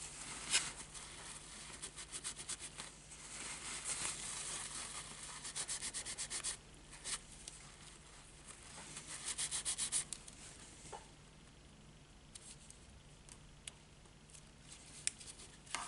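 A crumpled paper tissue rubbed briskly back and forth over a paper strip on a card tag, pressing the glued strip flat. The rubbing comes in bursts of quick strokes, several a second, then dies down after about eleven seconds to a few light taps.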